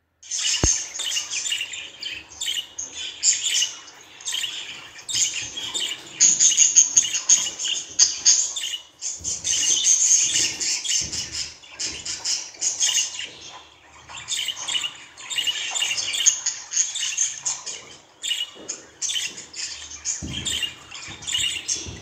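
Budgerigar chattering and warbling: a dense run of quick, high chirps and squawks with a few short breaks.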